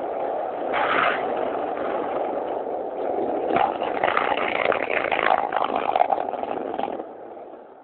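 Longboard wheels rolling with a steady rumble, turning to a rattling clatter over paving stones from about three and a half seconds in, then dying away near the end.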